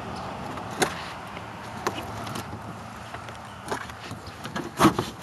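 Scattered knocks and clunks from a Porta-Bote seat being worked loose and slid out of the boat, with the loudest pair of knocks near the end.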